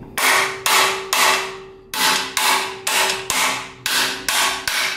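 Hammer blows on a steel rear trailing arm, driving a new suspension bushing into its eye. About ten ringing metal strikes, roughly two a second, with a short pause after the third.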